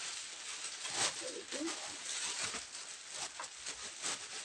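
Clear plastic wrap being handled and crinkled as it is put back over a gaming chair's backrest: irregular rustling crackles. A brief low cooing sound comes about a second and a half in.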